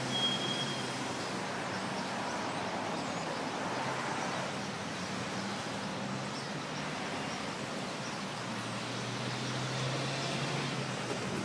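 Steady low engine hum under an even outdoor hiss, with one brief high whistle-like tone just after the start.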